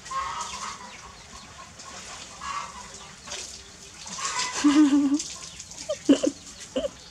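A few short, low animal calls with a wavering pitch, loudest a little past halfway, followed by two brief sharp calls.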